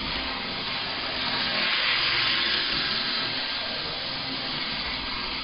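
HO-scale AHM F7 model diesel locomotive running on the track with a steady, noisy whir from its motor and gears, a little louder for a couple of seconds about a second in. It is still too noisy and needs more work.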